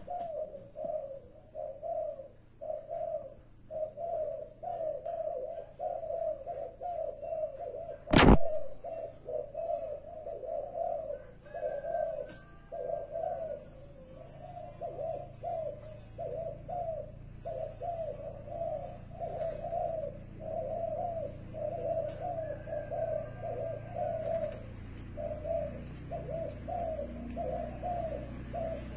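Spotted dove cooing over and over in short repeated phrases with brief pauses. A single sharp click about eight seconds in is louder than the cooing.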